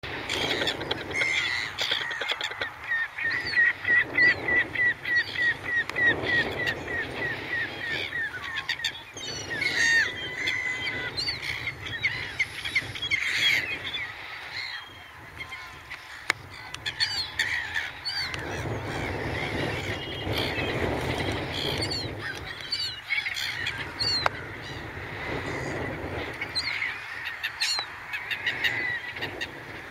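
A flock of gulls calling, many short overlapping calls. In the first several seconds one bird gives a fast run of repeated calls, about four a second.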